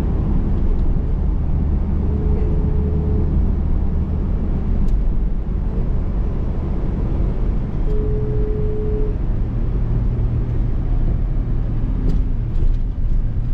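Car driving, heard from inside the cabin: a steady low engine and road rumble. A short steady tone sounds twice, each time for about a second.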